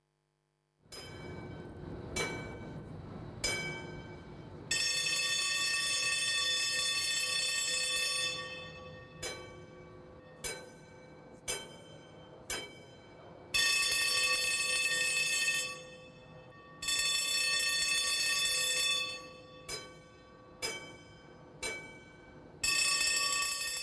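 Tram warning bells ringing. Single struck dings that ring out, in groups of two to four, alternate with long continuous rings lasting two to four seconds each.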